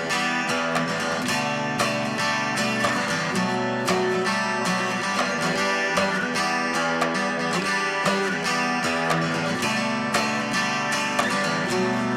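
Background music led by acoustic guitar, with steady picking and strumming.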